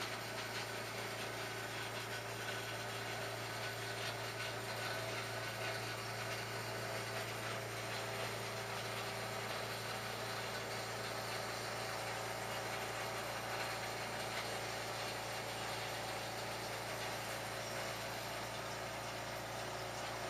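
Electric drill motor running steadily at constant speed, then switched off right at the end.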